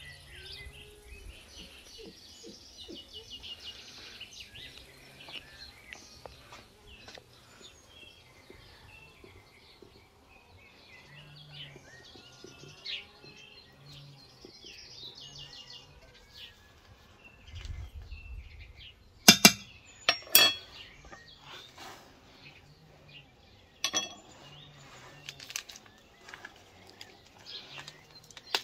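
Small birds chirping and singing continually outdoors. Two sharp knocks about two-thirds of the way through are the loudest sounds, and one more follows a few seconds later.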